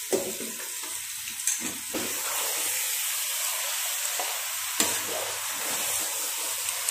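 Raw chicken sizzling in hot masala in a pressure cooker as it is stirred in, with a steady frying hiss. A metal spatula scrapes against the pot a few times, the sharpest about five seconds in.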